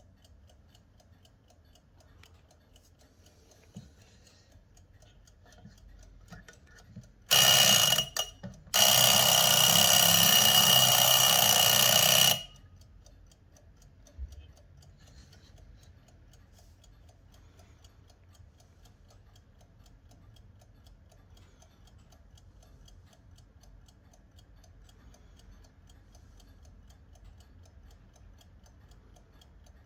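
1972 Bayard Walt Disney animated mechanical alarm clock ticking quietly, its alarm bell ringing loudly for about five seconds with a brief break just after it starts. It then cuts off suddenly, a single click follows, and the steady ticking goes on.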